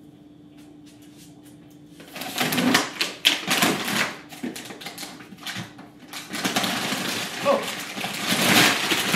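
Rummaging through a refrigerator freezer: plastic packaging rustling and crinkling, with short knocks and clatter of frozen items. It starts about two seconds in, after a quiet moment with a faint steady hum.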